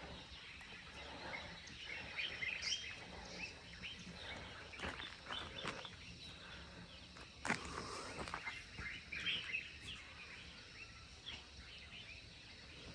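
Morning bird chorus of many small birds chirping over a low rural background hum, with a single sharp click about halfway through.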